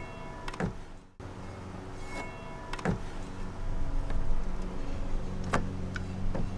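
A handful of sharp knocks and clunks as a wooden-spoke wheel and its metal brake drum are handled and turned over, over a steady low hum.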